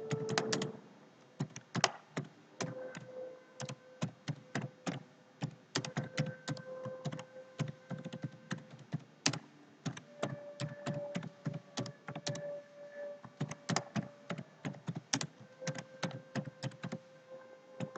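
Typing on a computer keyboard: a run of quick, irregular key clicks with short pauses between bursts of keystrokes.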